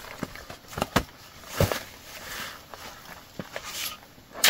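A series of irregular short knocks and thuds, several in the first two seconds and then sparser, with a sharper, louder knock near the end.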